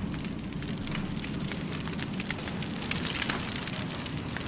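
Timber bonfire crackling under a mill chimney, a steady noisy burn sprinkled with many small pops. It is the fire Fred Dibnah's method lights in the undercut base to burn through the wooden props, so that the chimney drops.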